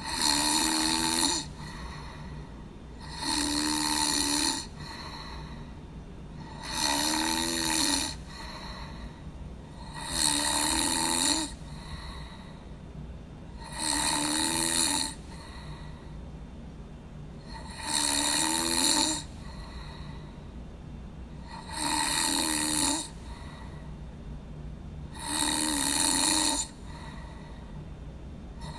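A person snoring in a steady rhythm: eight snores, one about every three and a half seconds, each lasting a little over a second, with a low steady hum between them.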